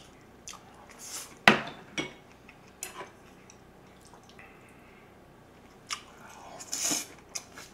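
Chopsticks clicking and tapping against a rice bowl and a serving platter, a few sharp separate clicks with the loudest about a second and a half in. Near the end come the wet mouth sounds of a big bite being taken.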